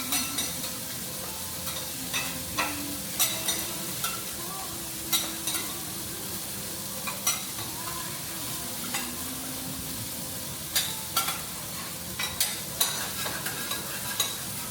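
Food sizzling on a hot teppanyaki griddle, with the chef's metal spatulas clicking and scraping against the steel plate at irregular moments throughout.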